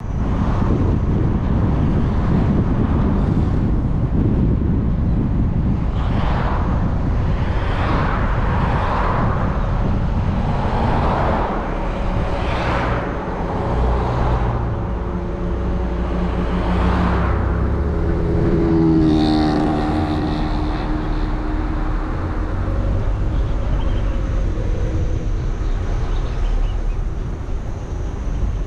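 A vehicle driving along a road: steady engine and road rumble, with the engine note rising several times. About two-thirds of the way through a brief sound with several pitches rises over it.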